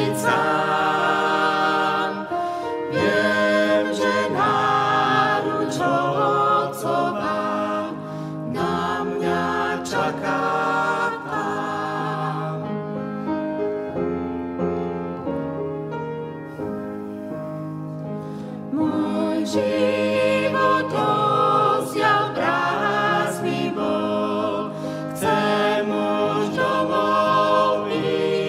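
Mixed vocal quartet of two men and two women singing a Slovak hymn in harmony, accompanied by upright piano. The music is softer for several seconds in the middle.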